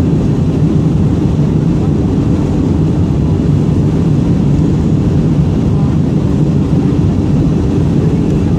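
Jet airliner cabin noise from a window seat: the steady, unbroken drone of the engines and the air rushing past the fuselage, heaviest in the low rumble.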